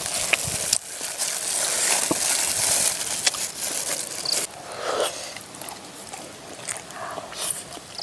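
Eating close to the microphone: chewing and crunching, with scattered sharp clicks and a stretch of hiss in the first half.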